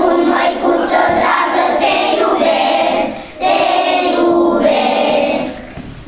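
A group of young schoolchildren singing a song together in chorus, with a short pause between lines about halfway through. The singing fades out just before the end.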